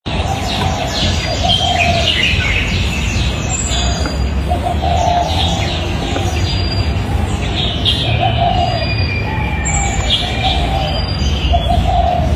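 Outdoor birdsong: high chirping, with a low cooing call repeated every second or two, like a dove, over a steady low rumble.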